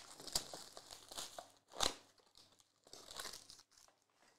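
Trading-card packaging being handled and opened: a cardboard box and a foil card pack crinkling and tearing in short, irregular bursts, with one sharper crackle about two seconds in.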